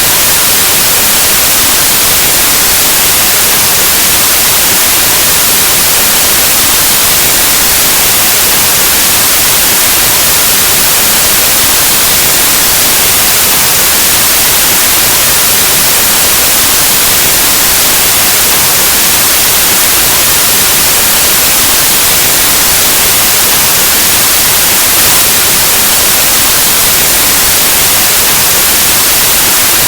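Steady, loud white noise: a continuous even hiss like analog TV or radio static, with no change.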